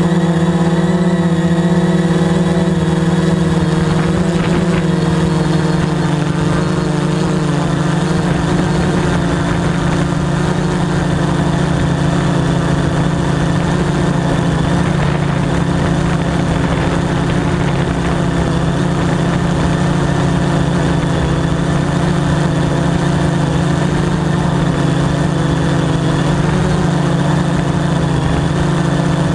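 Veho Muvi Q1 quadcopter's electric motors and propellers running steadily in flight, a loud even hum with overtones that holds nearly the same pitch throughout.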